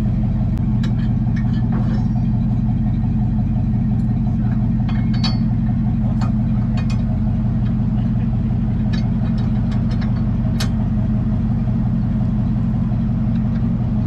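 Truck engine idling steadily, with scattered light clicks and clinks as a recovery strap is hooked onto a rear hitch.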